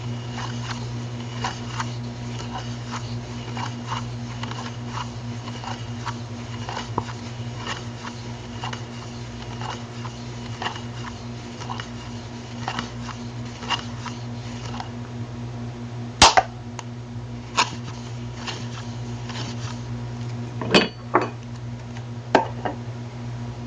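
A clock ticking faintly and evenly, about two ticks a second, under a steady low electrical hum. In the second half a few louder sharp clicks and knocks from objects being handled stand out.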